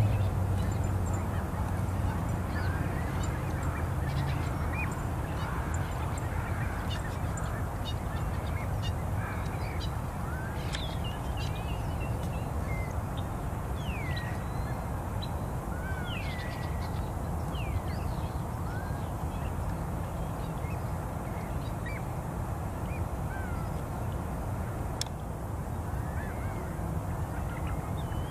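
Birds calling again and again in short, scattered calls, several curving up or down in pitch, over a steady low rumble.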